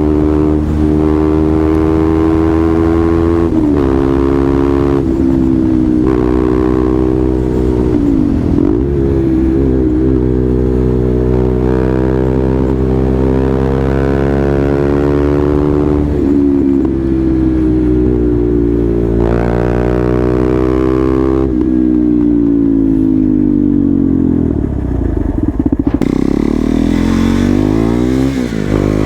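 KTM Duke 390 single-cylinder engine running under riding, its revs rising and falling again and again, with sharp drops in pitch around nine seconds in and near the end.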